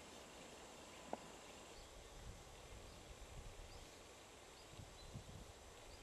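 Near silence: faint outdoor ambience under a steady hiss, with a single sharp click about a second in, soft low thumps in the second half, and faint short high-pitched chirps about once a second.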